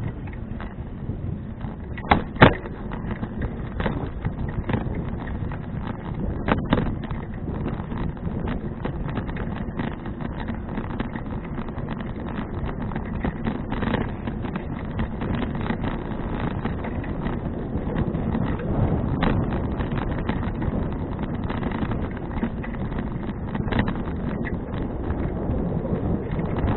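Wind rushing over an action camera's microphone during a bicycle ride, with scattered sharp knocks and rattles. The loudest knocks come as a pair about two seconds in.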